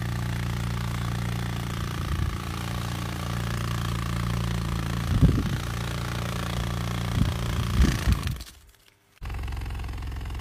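Hercules beetle's wings buzzing in a loud, low, steady drone, with a few short knocks in the middle. The buzz cuts out for under a second near the end, then starts again.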